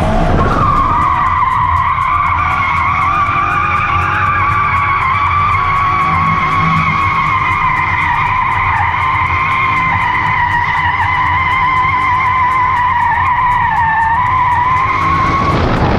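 A car's tyres squeal in one long, continuous drift, with the engine rumbling underneath. The squeal holds a fairly steady pitch with a slight waver, dips a little near the end and then stops.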